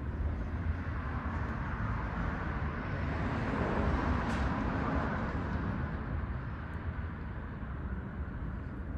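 Steady outdoor background noise with a low rumble. A broad whooshing swell builds about a third of the way in and fades again a couple of seconds later.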